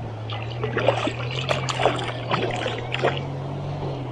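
Shallow river current lapping and splashing right at an action camera held just above the water, with irregular gurgles and splashes over a steady low rumble. The splashes thin out about three seconds in.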